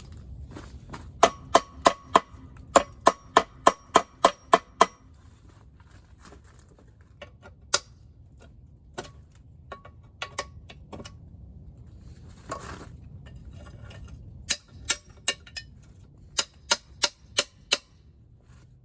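Sharp metallic clicks from hand tools working on the Wisconsin V4 engine's front gear train cover, in two quick runs of about three to four a second with a short ring on each, and scattered single clicks between.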